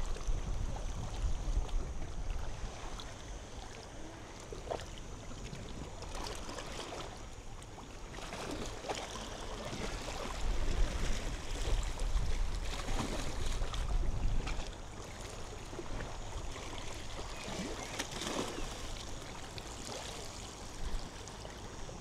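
Small waves washing onto a sandy beach, with wind buffeting the microphone. The sound swells louder about halfway through, then eases.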